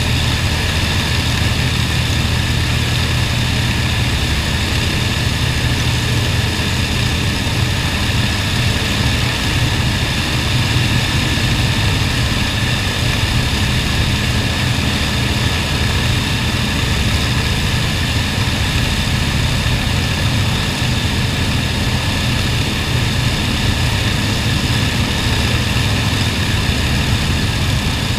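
Avro Lancaster bomber's four Merlin V12 piston engines running together on the ground, a loud steady propeller drone that holds an even pitch and level.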